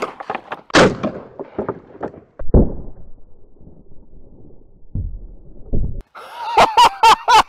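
Aftermath of a 12-gauge shotgun slug shot from a Benelli M4: a sharp crack with ringing echo just after the start, then dull thumps of the blast and flying debris. Near the end comes a quick series of short pitched pulses.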